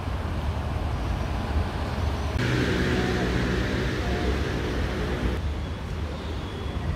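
Steady low rumble of road traffic from the bridge alongside. For about three seconds in the middle, a vehicle engine's hum joins in and then stops abruptly.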